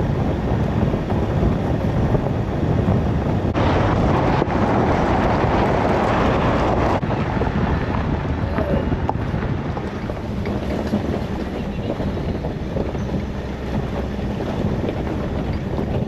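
Wind buffeting the microphone over a steady low rumble. About three and a half seconds in, a brighter rush of wind noise rises for a few seconds, then eases off.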